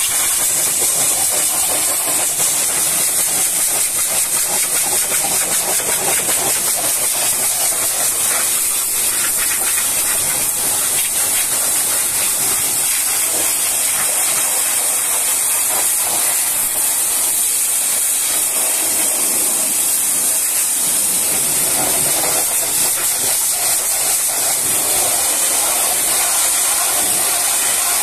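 High-pressure water jet from a pressure-washer wand spraying into a truck's open engine bay: a loud, steady hiss, with the splash on the radiator and engine parts shifting as the jet moves.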